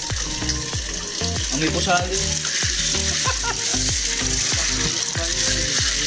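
Freshwater snails being washed by hand in a metal basin of water: a steady hiss of wet shells rubbing and swishing against each other as they are scrubbed.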